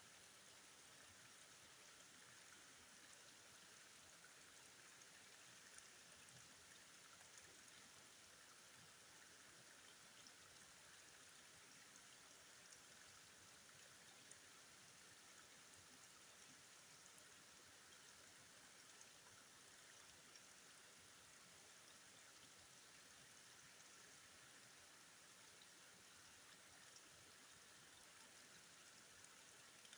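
Faint, steady rush of flowing river water, with a few tiny ticks.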